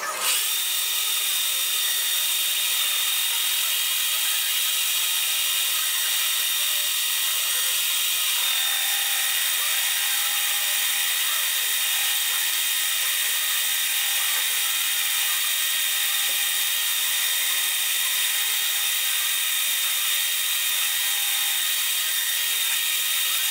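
Small metal lathe running steadily with a high whine, its chuck spinning and the cutting tool working a small brass disc.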